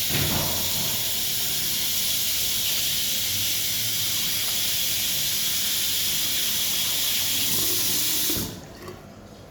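JD MacDonald Autobeam 1000 automatic hand dryer blowing, a steady rushing hiss of air that shuts off about eight and a half seconds in.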